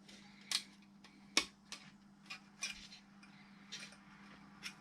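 Irregular sharp clicks and taps from handling the car radio unit's casing and parts during reassembly, about seven in all, over a faint steady hum.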